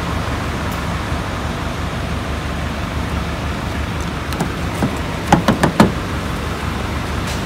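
Steady rumble and hiss of a petrol-station forecourt, then a quick run of four or five sharp clicks and knocks about five seconds in as a hand works a car's outer door handle.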